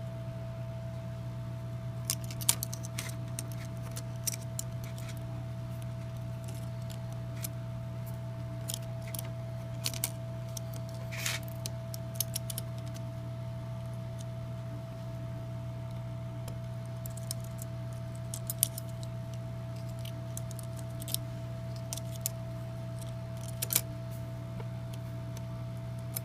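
Irregular small clicks, taps and light scrapes from a Samsung Galaxy S2 smartphone and its small parts and tools being handled during a repair, over a steady low electrical hum with a faint whine.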